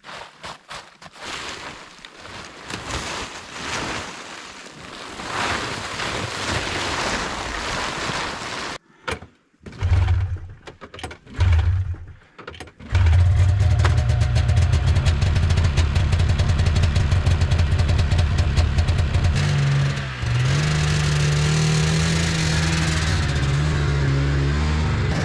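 A snow-laden cover rustles and scrapes as it is dragged off a Polaris Indy snowmobile. Then its two-stroke engine is pull-started: it fires briefly twice, catches about 13 seconds in and settles into a steady cold idle, smoking, with a brief dip and rise in pitch near the end.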